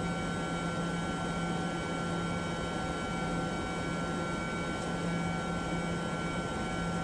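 Steady hum of running air-cooled chiller equipment, an even whooshing noise with several held tones that stays unchanged throughout.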